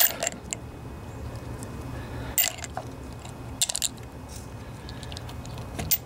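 Small carburetor jets and parts clicking and clinking as they are handled and dropped into a container of carburetor cleaner to soak: a few scattered clicks, the clearest about two and a half and three and a half seconds in, over a low steady hum.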